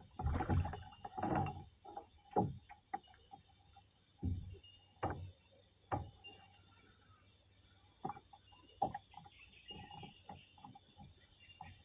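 Irregular knocks and thumps on a kayak hull while a hooked bass is fought and brought aboard. There is a cluster of knocks in the first second and a half, then single knocks every second or so.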